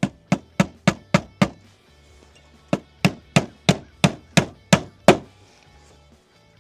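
Hammer driving a nail: a quick run of six strikes about three a second, a pause of about a second, then eight more strikes at the same pace, the last ones the loudest.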